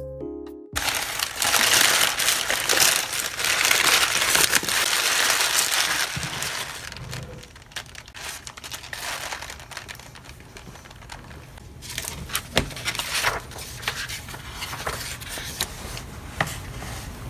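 Plastic takeout bag and paper sandwich wrapper crinkling as a sandwich is handled, loud for the first several seconds, then quieter rustling with a few sharp clicks.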